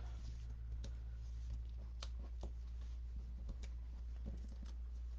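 Faint scattered taps and light rustles of cardstock being handled and pressed down onto a paper box on a tabletop, over a steady low hum.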